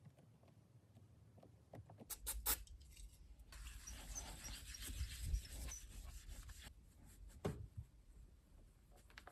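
Small handling noises from working on an iPad Mini: a few sharp clicks and taps, then a few seconds of rubbing or scraping, then another click.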